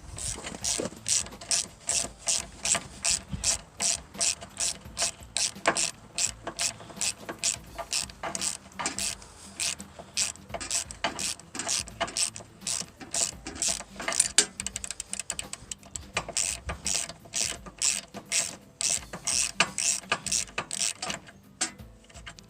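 Hand ratchet wrench clicking in quick repeated strokes, with a few short pauses, stopping about a second before the end.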